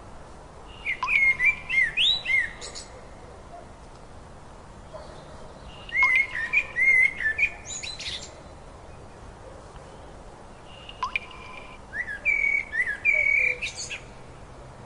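A songbird singing: three short phrases of quick, warbling whistled notes, a few seconds apart, over a faint steady background hiss.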